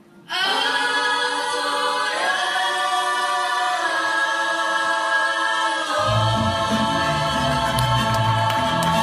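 Mariachi ensemble holding long sung notes over sustained violins, coming in suddenly after a brief hush and stepping up in pitch about two seconds in. About six seconds in, low bass strings and guitars join with a strummed rhythm under the held chord, the closing bars of the song.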